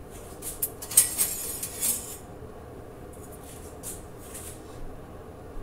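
Kitchen things being handled: a sharp click about a second in with a short clatter, then three softer taps a couple of seconds later, over a steady low hum.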